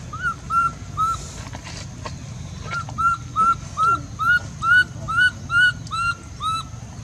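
An animal's repeated short, high, rise-and-fall calls: three in quick succession, a pause of almost two seconds, then about eleven more at roughly two or three a second.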